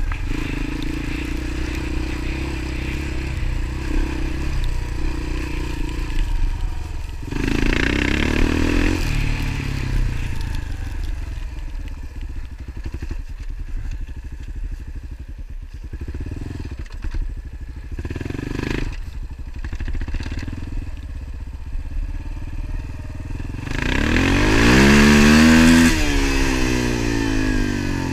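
An engine running under way, steady through most of the stretch, then revving up and back down near the end.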